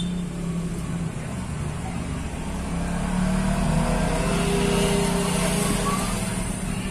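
A motor vehicle's engine running, growing louder through the middle and easing off near the end, like a vehicle passing by.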